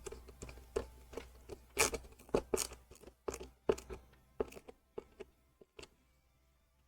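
Small screws being driven into a metal model part with a small screwdriver: irregular clicks and crunchy scrapes, thickest in the first three seconds and dying away around six seconds in.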